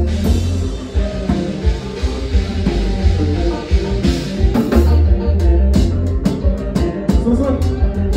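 Live band music: drum kit and electric guitar over a strong, steady bass line, with the drum hits coming thicker in the second half.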